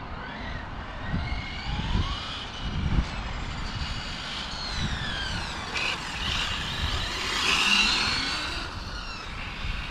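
Radio-controlled car's motor whining, its pitch sliding up and down as it speeds up, slows and passes, loudest about three-quarters of the way through. A low rumble of wind on the microphone runs underneath.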